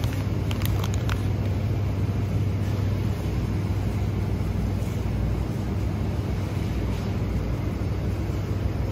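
Steady low hum and hiss of supermarket background noise, with a few light clicks in the first second.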